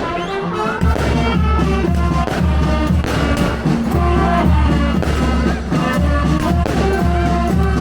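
Music with a heavy, steady bass beat that comes in about a second in, under several instrument or synth melody lines.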